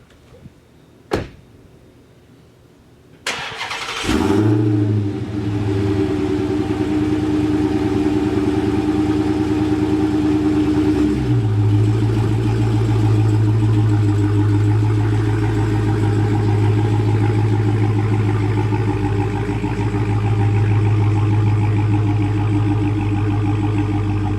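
Dodge Hellcat's supercharged 6.2-litre Hemi V8 cranked and started, catching with a burst about four seconds in, then idling steadily; the idle settles a step lower about eleven seconds in. A single short click comes before the start.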